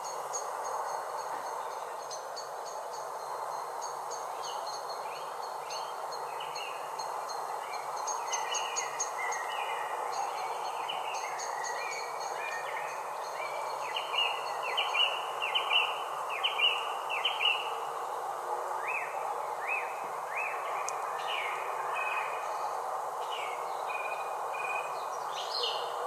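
Songbirds singing, a string of short chirps and quick downward-sweeping whistled notes, loudest a little past halfway. Behind them are a steady hiss and a faint, high pulsing trill.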